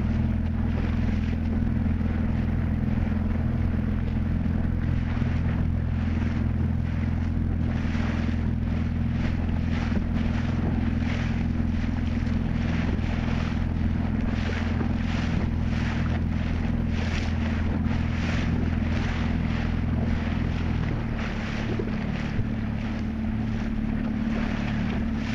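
A motorboat's engine running steadily, with water splashing against the hull and wind on the microphone; the engine note drops about 21 seconds in.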